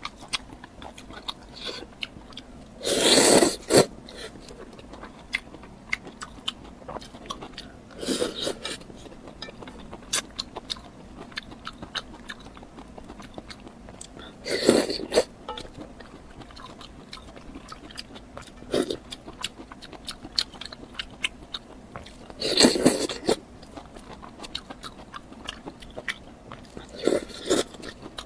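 Close-miked eating: steady chewing with small wet mouth clicks, broken by about five louder bites.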